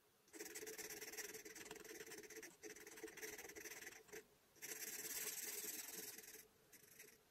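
Broad nib of an alcohol marker rubbing across paper while colouring in, in long strokes broken by short pauses about two and a half seconds in, just after four seconds, and near the end.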